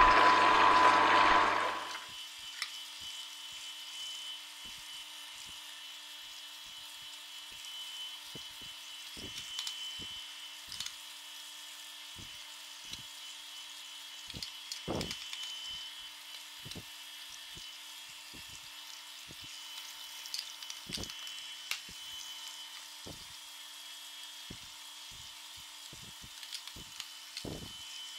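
Electric juicers, an Angel twin-gear juicer and a Hurom slow juicer, working carrot pulp through. A loud grinding noise lasts about the first two seconds, then drops to a faint steady motor hum with scattered clicks as the pulp is pressed through.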